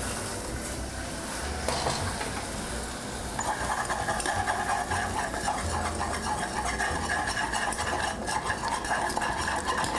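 Whisk stirring broth into a hot butter-and-flour roux in a pan, with a light sizzle, as the gravy thickens. The stirring grows busier about three and a half seconds in.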